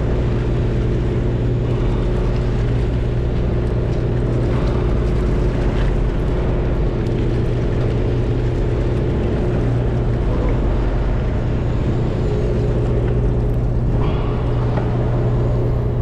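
Boat engine running steadily with a low, even hum.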